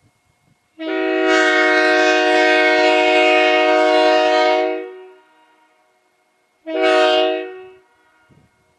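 1961 Leslie S3K three-chime locomotive air horn sounding a chord in a long blast of about four seconds, then a short blast about a second long.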